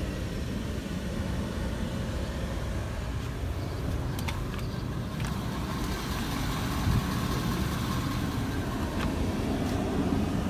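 Ford F-250 pickup's engine idling, a steady low rumble, with a few light clicks in the middle of it.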